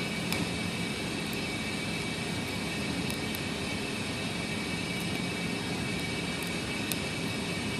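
Steady droning background noise, with a few faint light clicks scattered through it from a pick and tension wrench working the spool pins of a Commando tactical padlock.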